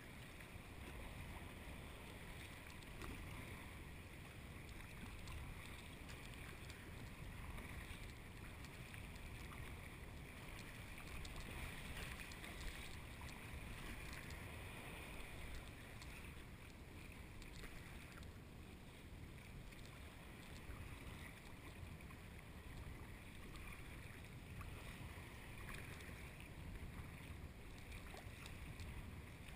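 Sea kayak being paddled through choppy sea water: a steady wash and splash of water around the hull, with wind buffeting the microphone.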